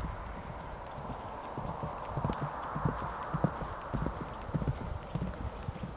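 Hooves of a ridden horse trotting on grass turf: a steady run of dull hoofbeats, about two or three a second.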